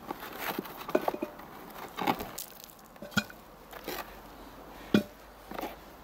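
Frozen smoked pork ribs being taken from a plastic tub and dropped into an Afghan kazan pot: a handful of separate knocks and clunks, the loudest about five seconds in.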